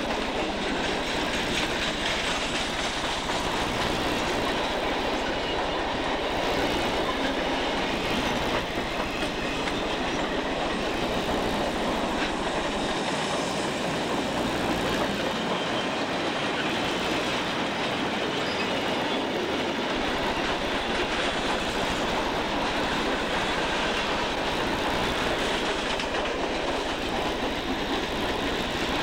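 Conrail freight cars rolling past close by, steel wheels running on the rails in a steady, continuous rumble.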